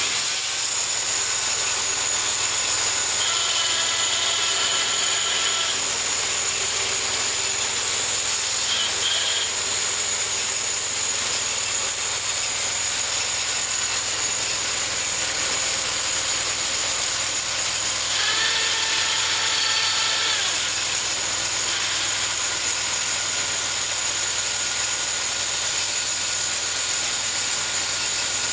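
Homemade bandsaw mill running steadily while sawing a cherry log, a constant engine-and-blade noise with a high, steady whine. Twice, for about two seconds each, a higher ringing tone rises over it, a few seconds in and again near two-thirds of the way through.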